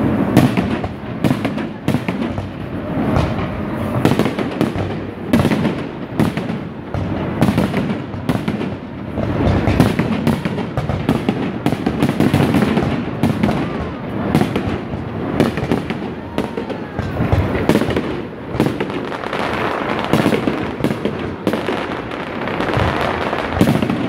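Aerial fireworks shells bursting in rapid succession: many sharp bangs close together with crackling between them, with no pause.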